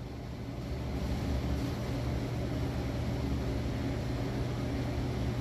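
Steady machine hum under an even hiss, growing slightly louder about half a second in.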